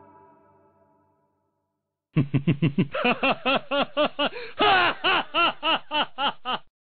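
Background music fades out, then about two seconds in a cartoon baby starts laughing: a long run of quick laughs, about four a second.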